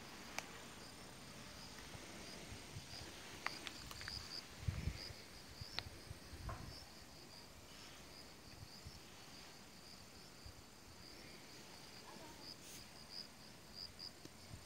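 Autumn insects chirping outdoors, short high chirps repeating in quick runs. A few soft clicks and low thumps break in near the middle.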